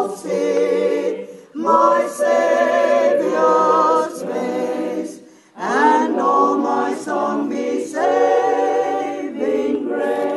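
A choir of mixed voices singing unaccompanied in harmony, in sustained phrases with two short breaks between them.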